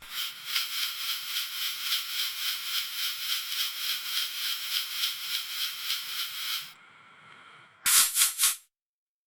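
Gauze pad rustling in steady, rhythmic rubbing strokes, about three a second, for most of the stretch. It then goes faint, and a few quick, sharp crinkles come near the end before it stops.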